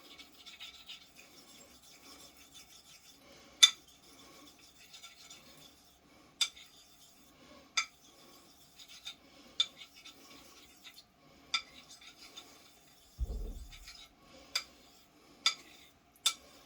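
Straight razor being honed on a Shapton 5K synthetic water stone: faint wet scraping of the blade across the stone, with a sharp click every second or two as the spine taps the stone when the razor is turned over between strokes. A dull bump comes about 13 seconds in.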